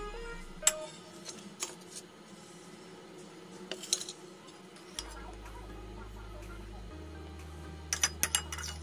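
Metal spoon clinking and tapping against a ceramic plate while serving a mayonnaise dressing: a single click under a second in, a few more around four seconds, and a quick run of taps near the end.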